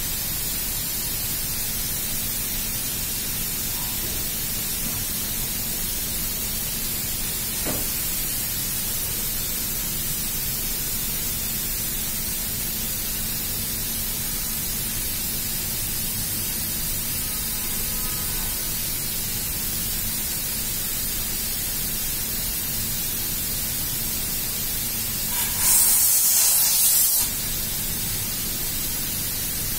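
Steady mechanical noise with a low hum throughout; about two-thirds of the way in, a loud hiss of compressed air escaping from the pneumatic hose fitting lasts about a second and a half, then cuts off.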